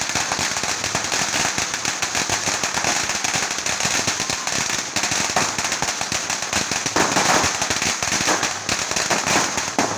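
A hanging string of firecrackers going off: a rapid, unbroken volley of sharp bangs.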